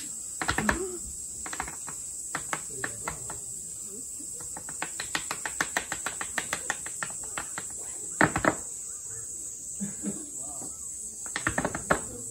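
Tap shoes striking a wooden board in irregular rhythms: scattered taps at first, a fast run of about five taps a second around the middle, and a loud double stamp about eight seconds in. A steady high insect drone runs underneath.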